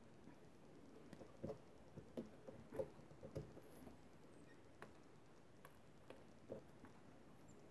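Quiet, scattered light taps and scrapes of hands handling paper and a MISTI stamp-positioning tool, its clear plastic lid and small magnets. The taps come in an irregular cluster over the first half, then single ones spaced out.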